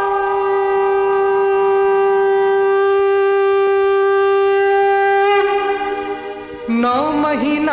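A conch shell blown in one long, steady note for about five seconds, as at Hindu worship, with a brief shift in the note before it ends. Near the end, music with a wavering melody begins.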